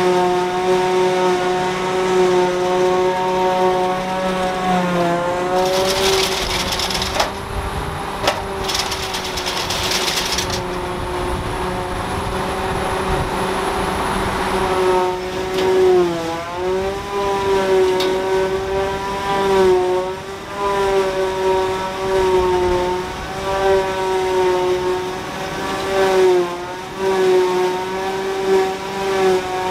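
Claas Jaguar forage harvester and a tractor-drawn Krone baler-wrapper working together, chopping grass and baling it. The machinery gives a steady high whine that sags in pitch briefly several times. A stretch of hiss comes about six to ten seconds in.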